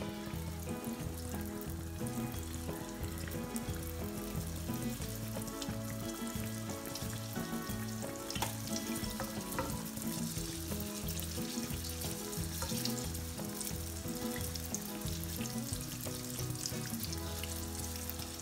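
Rounds of yeast beignet dough frying in a pan of oil over very low gas, a steady gentle sizzle as more rounds are laid in, under background music with a slow, stepping bass line.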